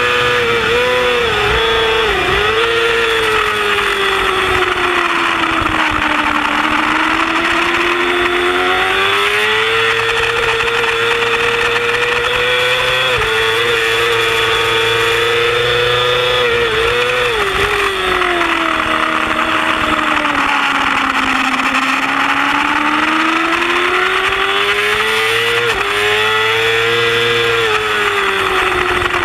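Yamaha R6 inline-four racing motorcycle engine at full race pace, the revs climbing in long sweeps under acceleration and falling away on the brakes. Quick gear changes drop and blip the note, with several rapid downshifts early on and again around the middle, and sharp upshifts about halfway and near the end. A steady rush of wind sits under the engine.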